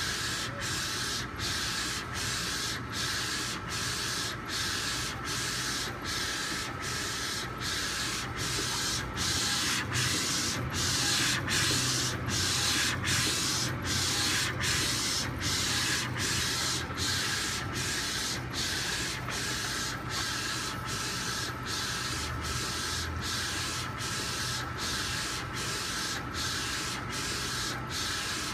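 Mutoh 1204 Plus wide-format inkjet printer printing. The print-head carriage sweeps back and forth in quick passes: a steady hissing whir that drops out briefly about every 0.7 s, over a faint steady whine.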